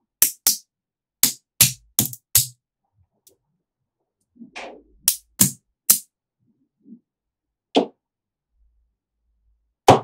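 Small neodymium magnetic balls snapping together in sharp clicks, about a dozen at irregular intervals with silent gaps, as blocks of balls are pressed into shape and set into place.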